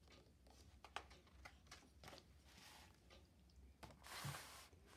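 Near silence with a few faint ticks, then the paper page of a picture book turned over about four seconds in, a brief rustle.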